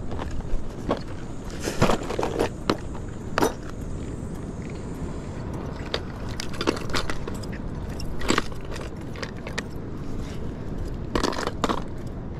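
Plastic tackle box being handled and opened, with metal jigs and lures clicking and rattling against each other and the box as hands sort through them. The clicks come scattered and irregular over a steady low rumble.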